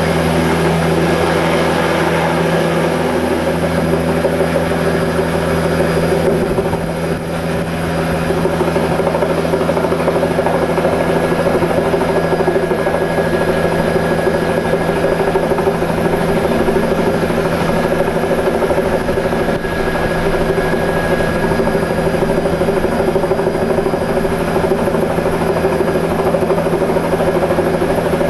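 Steady, loud drone of the small engine and propeller of the model aircraft carrying the camera, heard from on board as it climbs. The low part of the drone shifts about six seconds in.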